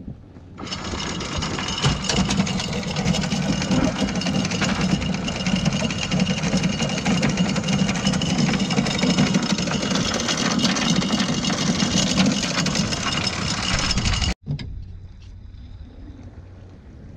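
Anchor chain running out from the bow windlass over the bow roller as the anchor is let go: a loud, steady metallic rattle of links that starts about half a second in and cuts off suddenly about fourteen seconds in.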